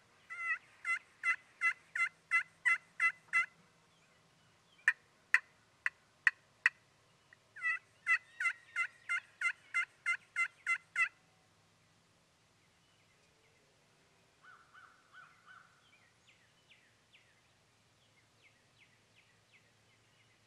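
Turkey yelps: a run of about nine evenly spaced yelps, five sharp cutts, then a second run of about ten yelps. Fainter, softer notes follow later.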